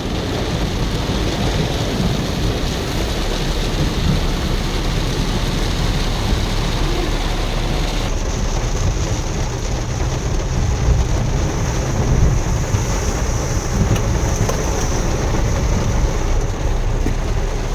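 Heavy rain pouring down, with a steady low rumble beneath it. About eight seconds in, the hiss of the rain shifts higher in pitch.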